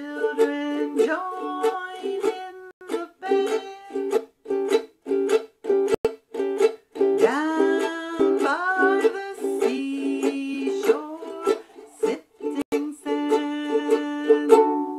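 A woman singing while strumming a ukulele in a steady rhythm, with percussive muted chops between the chords (the mute strum). The strumming stops near the end and the last chord rings out and fades.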